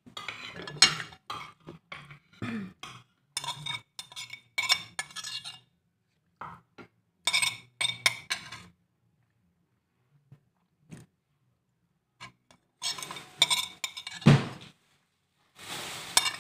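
Metal spoon clinking and scraping against a ceramic plate in short bursts, with quiet gaps between them. Near the end there is a short low thump.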